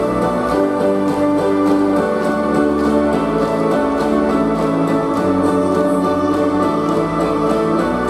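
Recorded dance music: sustained chords that shift every second or two over a steady beat.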